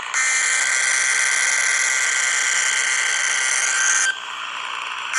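A loud, harsh, steady noise with a thin high tone running through it. It drops in level about four seconds in, comes back up near the end and cuts off abruptly.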